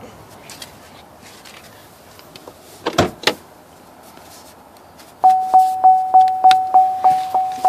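Two clunks about three seconds in as the hood release is pulled. Then, about five seconds in, the car's dash warning chime starts: a single tone repeating about three times a second, starting just as the headlight switch is turned on.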